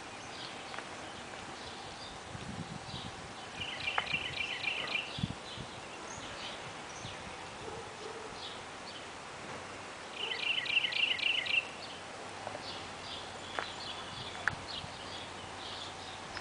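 Songbirds singing. One bird gives a quick trilled run of about ten notes twice, about four seconds in and again about ten seconds in, with scattered short chirps in between. A few light clicks are heard over a steady background hiss.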